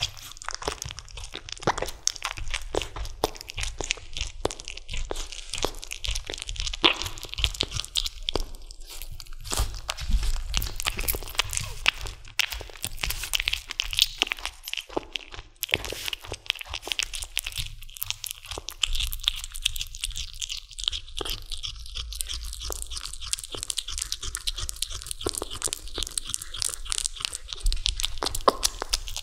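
A kitten gnawing and chewing on a raw chicken drumstick: a dense, continuous run of small crunching clicks.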